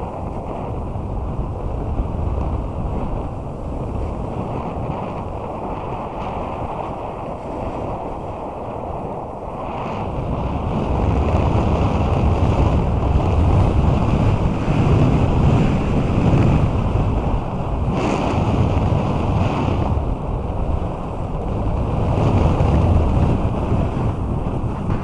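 Wind rushing over the microphone of a snowboarder's body-mounted camera during a downhill run, mixed with the snowboard sliding and scraping over snow. It grows louder about ten seconds in.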